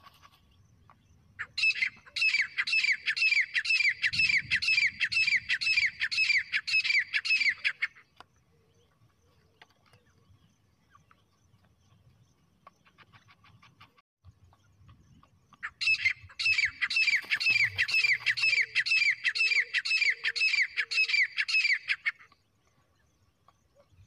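Grey francolin (teetar) calling: a fast run of shrill repeated notes, about two to three a second, in two bouts of about six seconds each, the second starting about two-thirds of the way in. It is the territorial call used to lure wild partridges.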